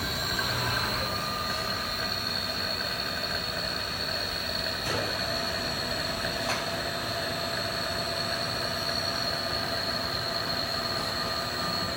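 Milling machine table traversing under its power feed, a steady high whine, as it carries the dial indicator back along the vise jaw to the starting point. It stops just before the end, with a couple of faint ticks along the way.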